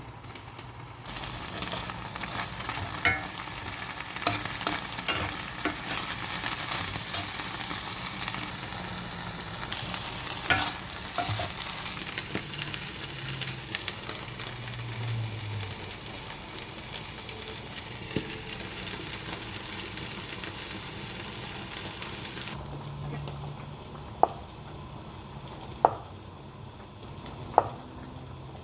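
Food frying and sizzling in hot oil in a pan while it is stirred, with the occasional clack of a utensil. About a second in the sizzle starts up loudly; it drops away sharply near the end, leaving three sharp taps on the pan.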